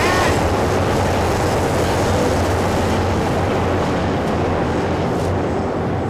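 Steady, loud rumble of passing vehicles, with a strong low hum under a constant hiss.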